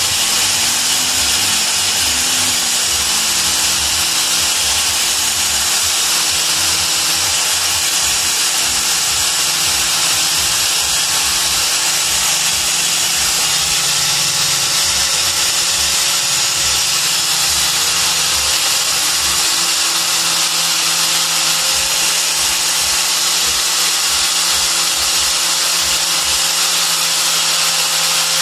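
Electric angle grinder with a felt buffing wheel running steadily without a break, buffing a small plastic-encased piece to a shine.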